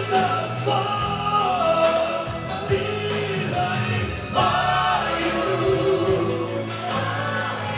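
Man singing into a handheld microphone over a backing track, his voice amplified through a PA speaker.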